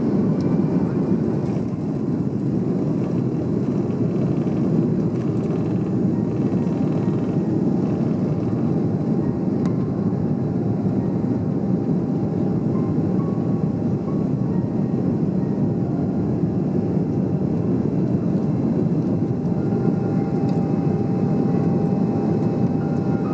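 Cabin noise of an Airbus A330-300 taking off: the twin jet engines at takeoff power make a loud, steady roar with a steady whine above it, continuing unchanged through liftoff into the initial climb.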